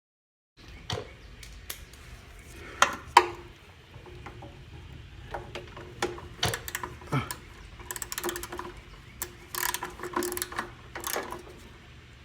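Scattered sharp clicks, knocks and short scrapes of hand tools and metal parts being handled while the gas tank and carburetor are refitted on a Briggs & Stratton Classic lawnmower engine.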